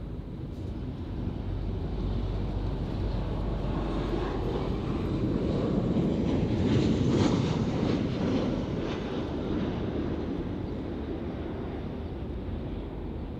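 Jet airliner coming in to land and passing close by. Its engine noise builds to a peak about six to seven seconds in, then slowly fades.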